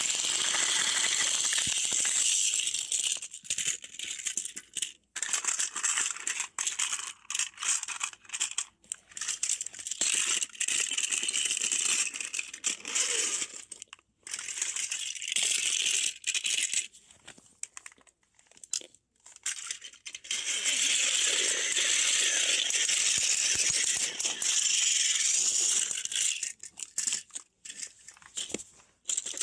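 Small battery-powered toy train's motor and gears whirring with a rattle, running in stretches of a few seconds and cutting out between them.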